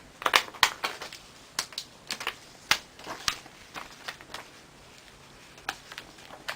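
Irregular small clicks and crackles of adhesive tape being peeled off a new laptop LCD panel while the panel is handled, busiest in the first few seconds and sparser after.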